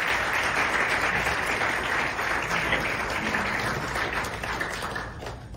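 Audience applauding: a dense patter of many hands clapping that slowly dies down and cuts off at the very end.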